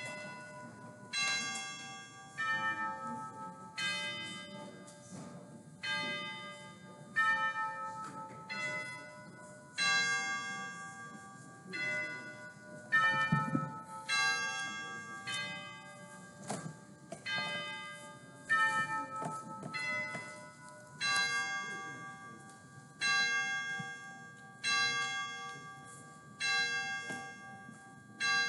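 Church bells ringing a slow sequence of single strikes of differing pitch, one every second or two, each note ringing on and fading before the next.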